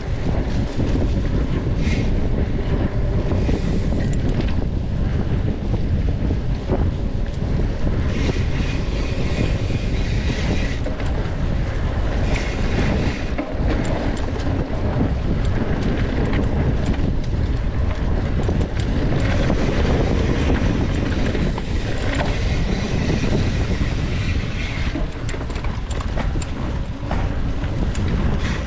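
Steady wind buffeting the microphone of a mountain biker's camera while riding, with scattered clicks and rattles.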